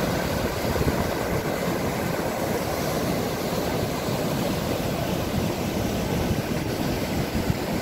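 River rapids rushing and churning over rocks, a steady, unbroken rush of water heaviest in the low range.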